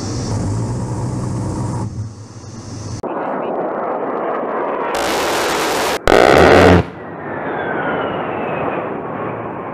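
A-10's GAU-8 Avenger 30 mm seven-barrel rotary cannon firing in long buzzing bursts, one near the start and the loudest about six seconds in, with jet-engine noise between them. A falling whine near the end.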